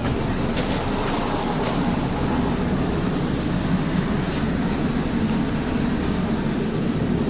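ET2M electric train running, heard from inside the carriage: a steady low rumble of the train in motion, with a few faint clicks.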